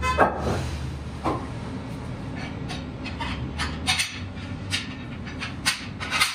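Irregular metallic clinks and knocks as clamps and tools are handled inside a large tractor tire, about ten in all and bunched toward the middle and end, over a steady low hum.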